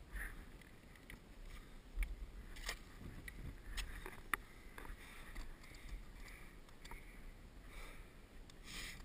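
A climber's breathing with scattered sharp clicks and scrapes of an ice axe and gear against granite and snow, over a low wind rumble on the microphone.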